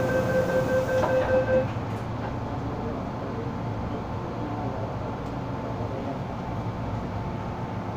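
MTR M-Train door-closing warning tone sounding steadily and cutting off about a second and a half in, followed by the steady low rumble of the train car as it pulls out.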